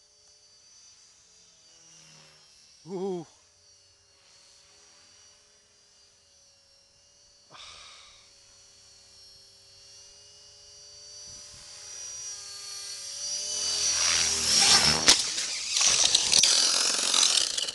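Electric Esky Belt CP V2 RC helicopter whining faintly high overhead, then growing steadily louder over the last several seconds as it comes down out of control. It reaches a loud whirring rush of motor and rotor with a few sharp knocks, then stops abruptly at the very end as it crashes.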